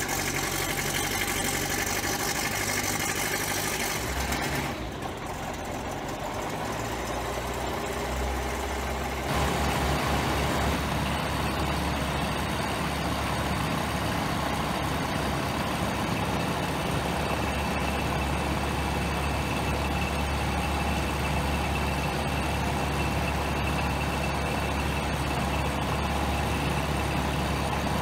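Van's RV-12 light aircraft's Rotax 912 four-cylinder engine running steadily at idle with the propeller turning, just after its first-ever start on a newly built plane. About nine seconds in the sound changes abruptly to a louder, steadier run, and the builder judges that the engine sounds good.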